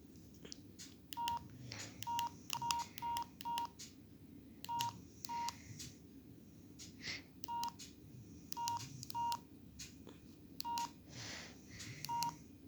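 Electronic key-press beeps, about a dozen short steady beeps at an uneven typing pace, each with a sharp click, and further clicks without beeps in between, like typing on a phone keypad with key tones on.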